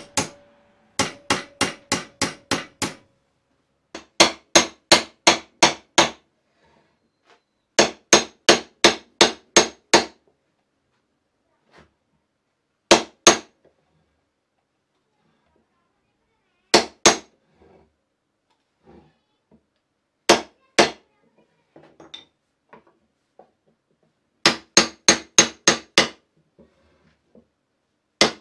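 Small hammer tapping metal hinge pins, in quick runs of light blows about four a second with pauses between runs. A short ringing tone hangs under the first blows.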